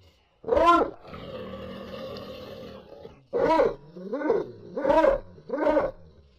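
Five short, loud animal-like calls, each rising then falling in pitch: one about half a second in, then four in quick succession in the second half. A steady hum fills the gap between them.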